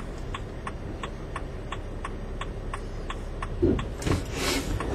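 Van's turn-signal indicator ticking at an even pace, several ticks a second, over the low hum of the engine and road noise. A brief swish comes near the end.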